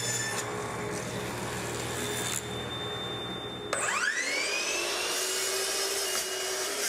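Table saw running as a slab is pushed through on a crosscut sled. About three and a half seconds in, a miter saw's motor starts with a quickly rising whine that levels off into a steady run as its blade is lowered onto a maple board.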